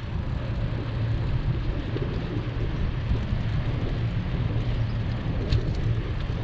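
Steady low rumble of wind buffeting the microphone of a bicycle-mounted camera while riding, mixed with road noise, with a couple of faint ticks about five and a half seconds in.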